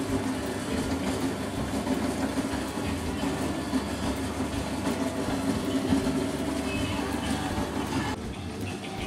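Motor-driven sugarcane juice press running, a steady mechanical hum with low rumble and small rattling ticks; the higher part of the sound drops away about eight seconds in.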